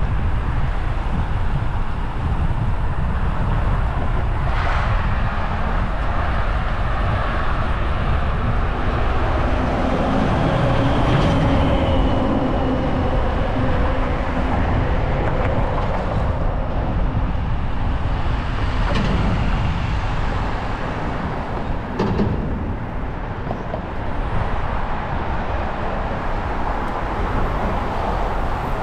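Steady wind rush and rumble on the microphone of a moving bicycle, with a faint brief whine about halfway through and a few sharp ticks later on.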